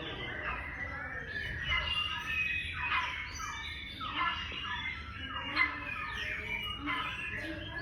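Bird calls played back from an interactive touch display: many short chirps and squawks, some sweeping down in pitch, overlapping without pause.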